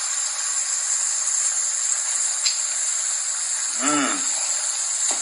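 Steady hiss, with a short voiced sound about four seconds in.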